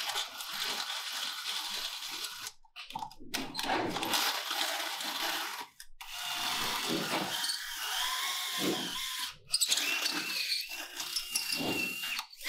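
Handheld power drill boring into the steel body of a TL-15 rated safe, running in stretches with a few brief stops. A thin high whine from the bit in the metal comes in during the second half.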